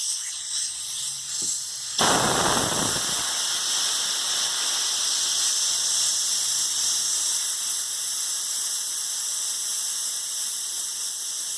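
Compressed air blowing out of an air blow-gun nozzle when its trigger is pulled: a sudden loud blast about two seconds in, then a steady hiss. The air pressure falls off during use, which the owner traces to an old 100-foot air hose collapsing inside.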